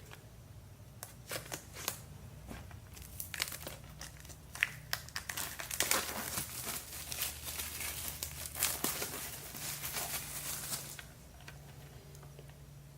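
Plastic packaging crinkling and rustling as a steelbook Blu-ray case is handled and unwrapped, with scattered clicks, busiest in the second half and dying down a couple of seconds before the end.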